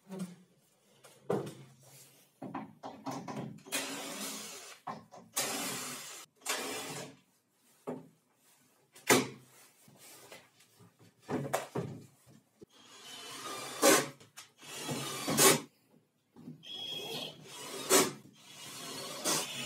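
Wooden cabinet panels being handled and fitted: a string of irregular knocks and thuds with stretches of scraping and sliding, and short pauses between.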